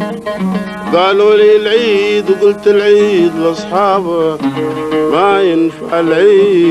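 Sawt music on the oud: plucked oud with a male voice singing long, wavering drawn-out notes.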